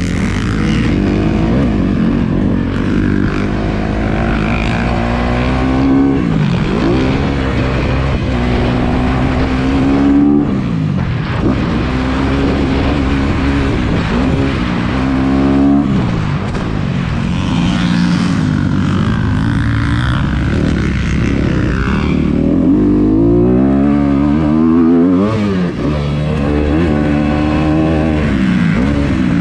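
Dirt bike engine heard from on board while riding a motocross track, revving up and dropping back over and over as the throttle opens and closes through the turns and straights, over steady wind rush.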